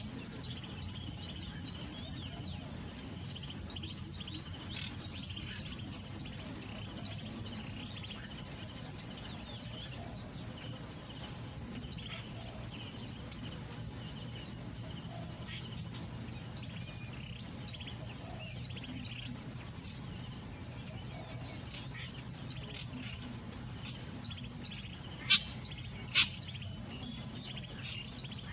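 Wild birds calling at a lakeside over a steady low background hum. A quick series of short, high chirps comes a few seconds in, scattered calls follow, and two sharp, loud notes sound near the end.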